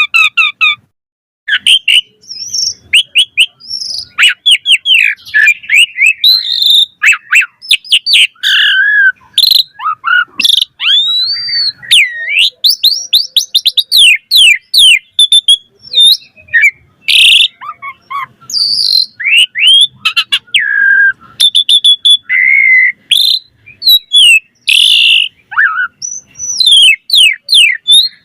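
Asian pied starling (jalak suren) singing a long, varied song: clear whistles, rising and falling glides, fast harsh rattles and sharp clicks, with only short pauses.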